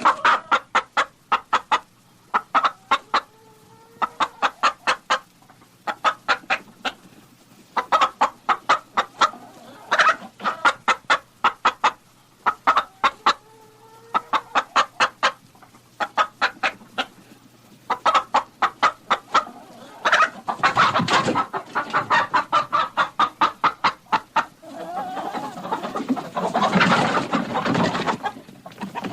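Chickens clucking in quick runs of short, sharp notes that come in bursts every couple of seconds. The calls grow denser about two-thirds of the way through, then turn into a more continuous, noisier clamour near the end.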